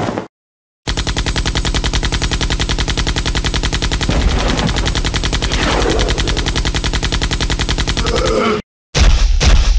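Cartoon sound effect of machine-gun fire: a fast, even rattle of shots that runs for about eight seconds. It breaks off briefly near the end and comes back as a louder burst.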